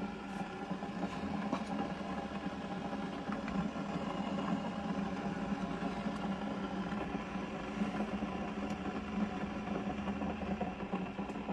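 Keurig brewer running through a brew cycle, its pump giving a steady hum as hot water dispenses into a glass tea tumbler.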